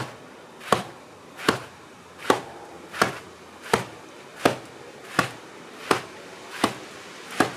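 Bare-fist punches landing on a wall-mounted wing chun sandbag: about ten single hits at a slow, even pace, roughly one every three-quarters of a second.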